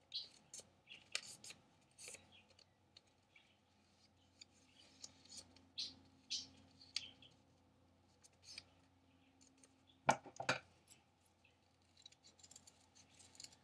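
Scissors cutting folded paper, with paper rustling as it is folded and handled: scattered short snips and crinkles, and two louder sharp sounds close together about ten seconds in.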